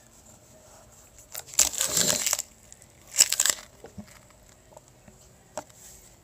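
Plastic card sleeves, top loaders and packing being handled, rustling and crinkling in two short bursts about one and a half and three seconds in, with a few light clicks of plastic later on.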